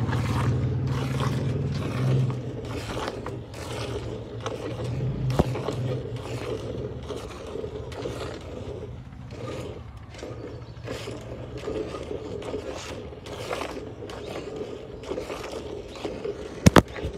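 Hand-milking a cow: jets of milk squirting from the teats into a steel pail already holding milk, in a steady rhythm of about two squirts a second. Two sharp clicks near the end.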